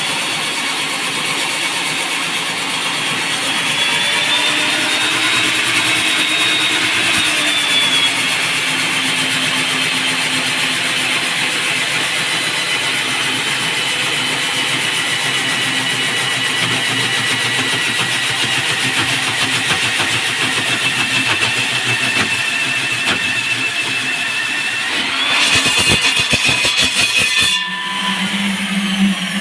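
Electric diamond core-drilling machine boring into a concrete slab: a steady motor whine over the grinding of the cut. Near the end the motor pitch rises and the sound grows louder, then it cuts off shortly before the end.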